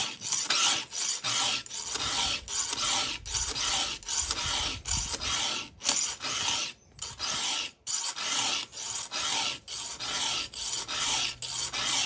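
Round chainsaw file rasping through the cutter tooth of a saw chain in even hand strokes, about one and a half a second, with a short break about seven seconds in. The cutter is being sharpened with the file taken down low into the gullet.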